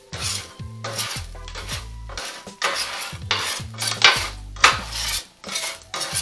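Metal spatula scraping and tapping on a steel flat-top hibachi griddle in quick repeated strokes, about two a second.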